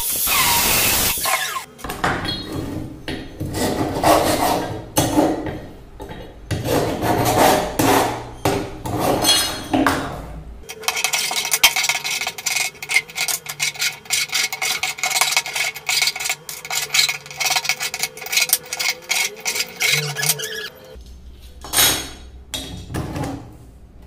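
An angle grinder runs for the first second or so and dies away, then a hand file scrapes along the cut edge of a metal angle section in quick, repeated strokes, fastest and most even through the second half.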